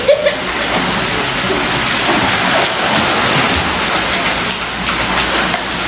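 Steady rush and splashing of water in a swimming pool, with a wall water feature pouring into it while a child swims.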